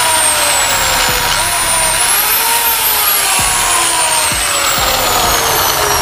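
Laser Tech CM6 6-inch marble cutter's 1700 W motor blipped on with no blade load to show its torque: the high whine jumps up in pitch about a second and a half in as the motor spins up, then falls slowly as it coasts down.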